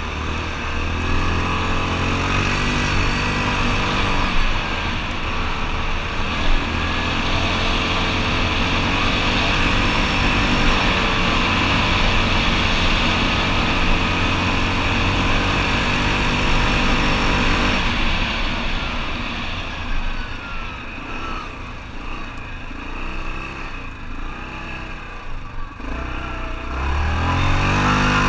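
ATV engine running steadily under way, dropping back to a lower, quieter note about two-thirds through, then revving up again near the end.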